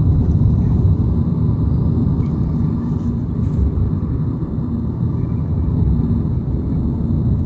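Car in motion heard from inside the cabin: a steady low rumble of engine and road noise with no distinct events.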